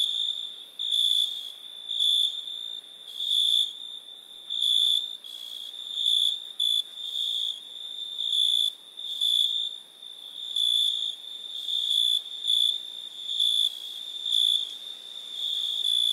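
A high-pitched insect trill, steady in pitch and swelling in level about once a second.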